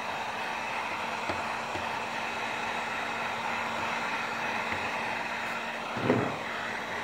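Electric heat gun blowing steadily, its fan running with a faint steady hum. A brief low thump about six seconds in.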